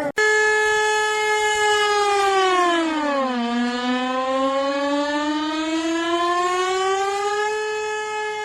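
A civil-defence-style emergency alert siren played in reverse: a single wailing tone with many overtones that holds steady, slides down in pitch over about two seconds, then climbs slowly back up over the next four.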